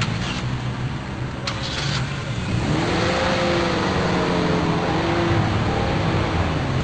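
Car engines running as vehicles drive past, one engine revving, its pitch wavering up and down from a few seconds in.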